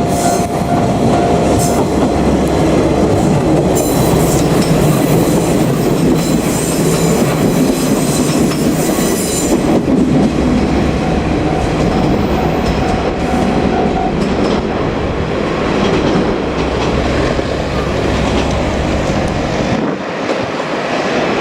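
JR Kyushu diesel railcar passing close by, its engine running and its wheels clattering over the rail joints. There is a high wheel squeal for several seconds in the first half, and a thin steady tone is heard briefly at the start and again a little past the middle.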